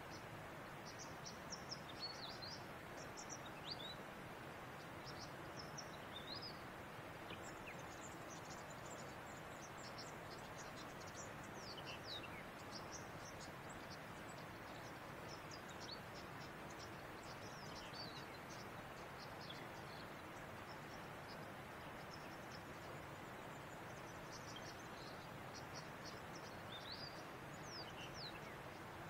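Faint outdoor ambience: a steady hiss of background noise with small birds chirping, short high calls and quick sweeps scattered irregularly throughout.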